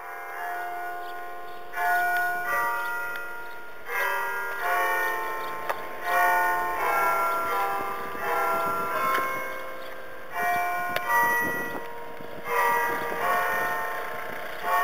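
Church bells ringing: several bells struck in overlapping clusters about every two seconds, each stroke ringing on.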